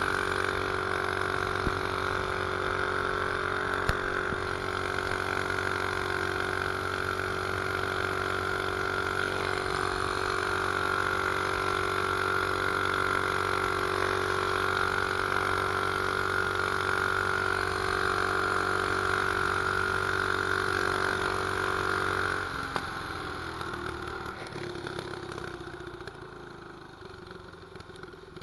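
Mini bike's 212cc single-cylinder engine with an aftermarket exhaust pipe, running steadily under way. About three-quarters of the way in, the engine note drops away and the sound fades as the bike slows.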